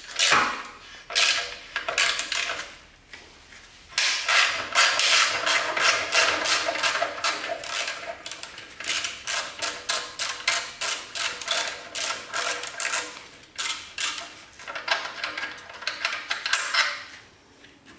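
Ratchet wrench with a 12 mm socket clicking in quick, even strokes as it loosens an exhaust mounting bolt, with a short pause about three seconds in.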